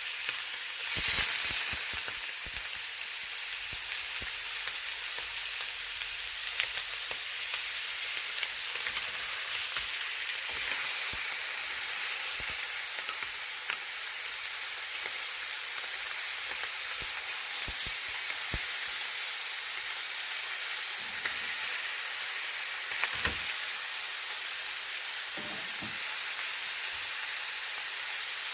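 Fish fillets sizzling steadily in a hot frying pan with olive oil, seared on high heat, with a few light knocks and clicks here and there.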